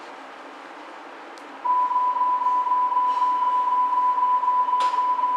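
Door-closing warning tone of a Hamburg Hochbahn DT3-E U-Bahn car: a loud, steady beep at one pitch that comes on suddenly about a second and a half in. It sounds over a steady background hum, with a short click near the end.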